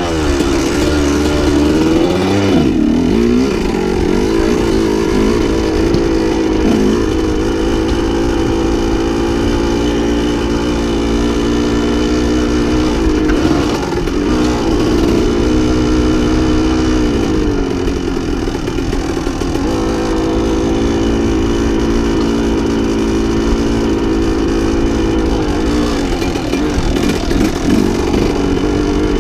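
Single-cylinder two-stroke engine of a 1987 Yamaha YZ125 dirt bike running under way on a trail. The revs rise and fall repeatedly with the throttle.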